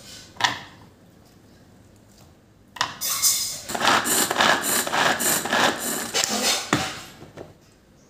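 Pull-cord manual vegetable chopper chopping onions: rapid repeated pulls of the cord spin the blades through the onion pieces in its plastic bowl, a loud whirring clatter that lasts about four seconds, starting about three seconds in. A sharp click comes shortly before, as the pieces and lid go on.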